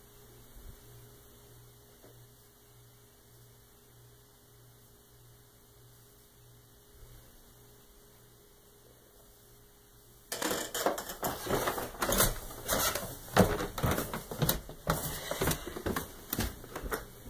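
Near silence with a faint steady hum, then, about ten seconds in, several seconds of rapid, irregular clicking and knocking in a small room.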